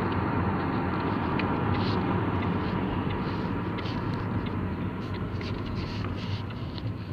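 Steady engine and road noise of a moving car heard from inside the cabin, with a few faint ticks.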